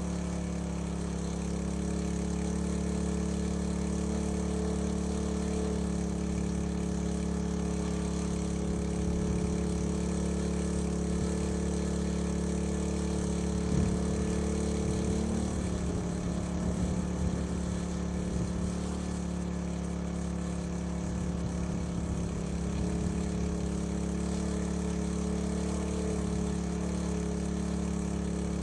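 Small petrol engine of a fire-fighting water pump running steadily at constant speed, pumping water from a tank out through a firehose. The engine note wavers briefly about halfway through.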